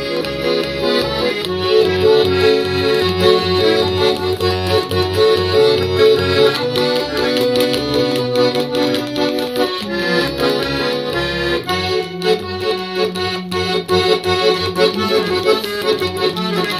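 Russian garmon button accordion playing an improvised Israeli folk melody: a melody line on the right-hand buttons over a pulsing bass-and-chord accompaniment from the left hand.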